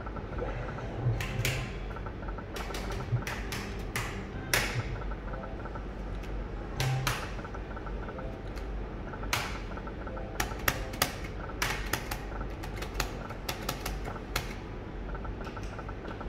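Slot machine in play: irregular sharp clicks, sometimes several in quick succession, as spins are started and the reels stop. Faint electronic beeping from gaming machines runs underneath.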